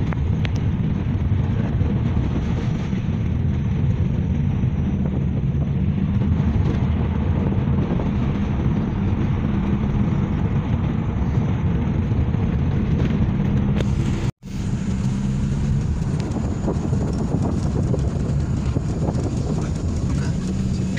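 Steady low road and engine rumble heard inside a moving car's cabin. The sound cuts out for an instant about two-thirds of the way through, then carries on.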